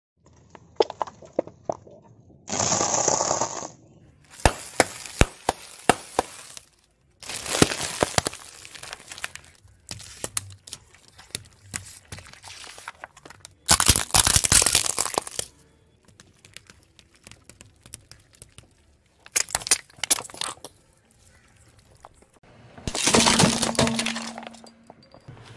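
A car tyre rolling over and crushing brittle objects: a series of separate bursts of sharp cracks, snaps and crunches of breaking plastic and glass, with pauses between them.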